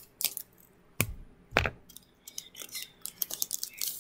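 Foil booster-pack wrapper of Pokémon cards crinkling and crackling in the hands as the pack is opened, a run of short sharp crackles with two louder bumps a little after a second in.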